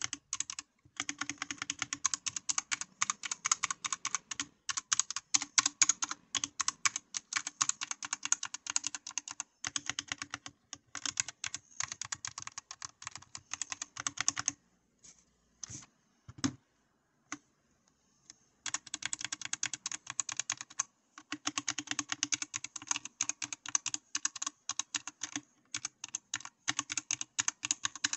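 Typing on a Dierya DK61E 60% mechanical keyboard with optical switches: fast, continuous key clicks. Past the middle the typing thins to a few single key presses for a few seconds, then resumes at full pace.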